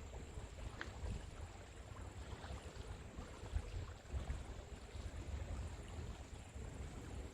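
Soft sea waves lapping and washing on the shore of a sheltered bay. The sound is a steady hiss of water over a fluctuating low rumble.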